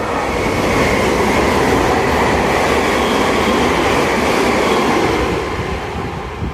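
Meitetsu limited express train running through the station at speed without stopping: a loud, steady rush of wheels on rail that starts abruptly and eases off in the last second or so as the train clears the platform.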